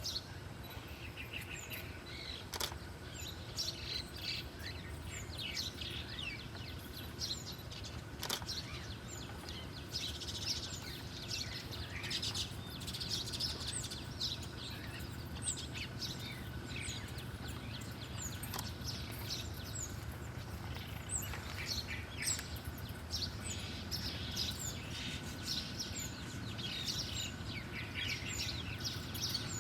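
Small songbirds chirping, quick sharp calls repeated over and over, over a steady low background hum, with a couple of brief clicks a few seconds in.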